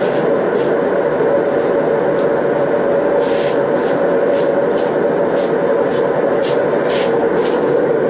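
TS8000 air/propane torch burning steadily into a Kaowool-lined brick furnace: a continuous rushing flame noise with scattered faint high ticks.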